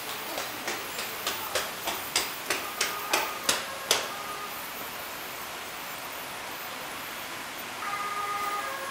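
A run of sharp clicks, about three a second, over a steady hiss for the first four seconds. Near the end, a fire-engine siren sound effect from the model fire trucks starts up as steady tones.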